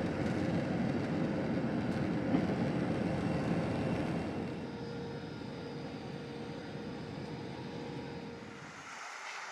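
Steady low rumble of a vehicle, strongest in the first few seconds and then easing, with a steady hum over it. The deep rumble cuts off suddenly near the end.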